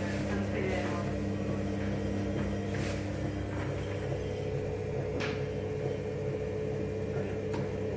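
Electric potter's wheel running with a steady motor hum while wet clay is shaped on the spinning wheel head.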